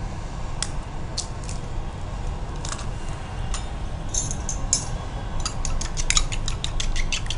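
Spoon clinking in a small stainless-steel bowl: a few scattered taps, then about five seconds in a quick run of clinks, about seven a second, as an egg is beaten.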